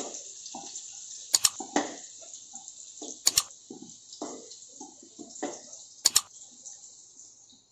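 A steel spatula scraping and knocking against a steel wok and bowl as fried pieces are lifted out, with three sharp metallic clinks. Underneath is a steady high hiss from the stove that fades near the end.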